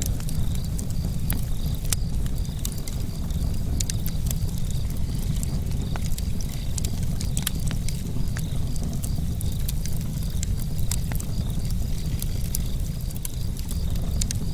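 Campfire burning, with frequent irregular crackles and pops over a steady low rumble.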